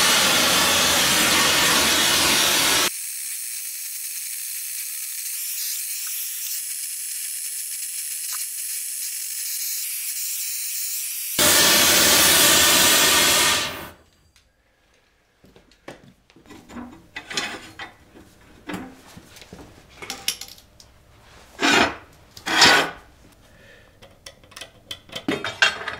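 Long-handled gas torch hissing steadily as its flame heats steel rebar for bending; the hiss turns thinner and quieter for several seconds in the middle, then stops suddenly about 14 seconds in. After that, scattered light clicks and knocks of rebar and tools handled on a steel table, with two louder knocks near the end.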